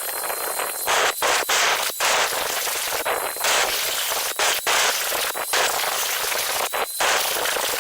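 Loud, high-pitched hiss of a pressurised spray, in a run of long bursts broken by brief gaps, with a faint whistle at times.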